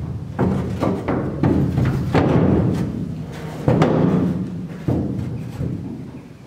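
Background music with heavy drum hits.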